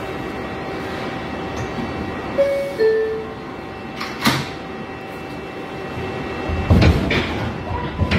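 New York City subway car (R142A) door-closing chime, two falling notes, then the sliding doors shut with a thud about four seconds in. Near the end, loud rushes of noise and a rising steady motor tone as the train starts to pull out of the station.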